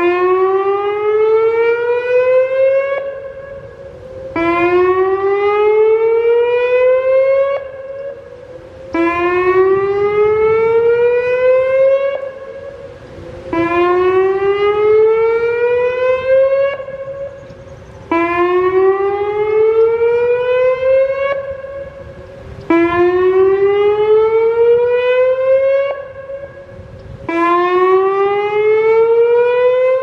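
Whelen WPS-2750 electronic outdoor warning siren sounding its whoop tone: a loud rising sweep about three seconds long, repeated about every four and a half seconds, seven times.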